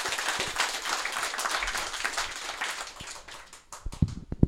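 Small audience applauding after a talk, the clapping fading out about three and a half seconds in. Near the end come a few loud low thumps from the handheld microphone being handled.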